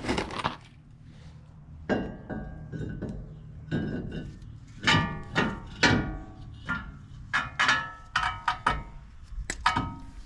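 Metal tools clinking and knocking against the brake caliper and its bolts, a dozen or so irregular strikes, several ringing briefly, coming thicker in the second half.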